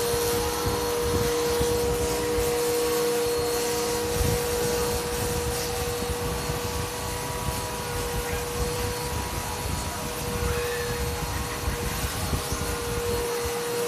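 Vacuum cleaner running steadily with a constant whine over its airflow noise, with irregular low knocks and rubbing throughout.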